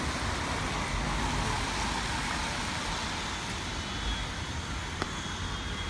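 City street traffic: a steady hiss and low rumble of passing vehicles.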